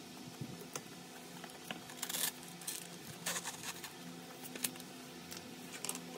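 Foil-paper lid of an instant cup noodle being peeled back, crinkling in a handful of short bursts with a few light clicks, over a faint steady room hum.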